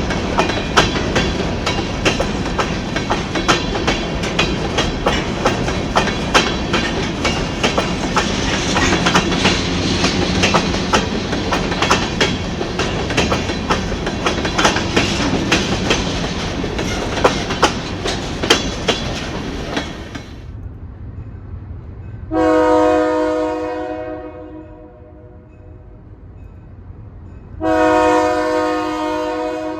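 A train rolling past with a dense clatter of wheels over the rails, which dies away about two-thirds of the way through. A locomotive's multi-chime air horn then sounds twice, each blast a chord of several tones lasting about two seconds.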